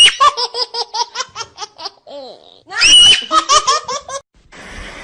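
A baby laughing hard in two bouts, each opening with a high squeal and breaking into quick rhythmic belly laughs. A steady hiss starts near the end.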